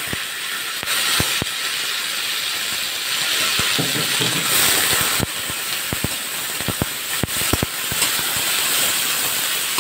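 Sliced onions sizzling in hot oil in a metal kadai: a steady hiss, broken by scattered sharp clicks that come more often past the middle as the onions are stirred.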